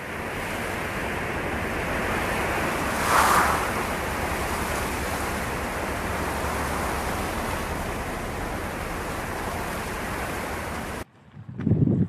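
Steady rushing noise with no clear pitch. It swells briefly about three seconds in and cuts off abruptly about a second before the end, followed by a short low thump.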